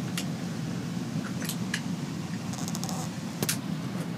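Steady low rumble of a GO Train passenger coach running along the track, heard from inside the coach, with a few faint clicks and rattles.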